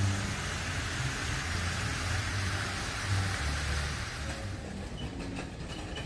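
Steady splashing hiss of a plaza fountain's water jets, which fades out about four seconds in, over the soft bass line of background music.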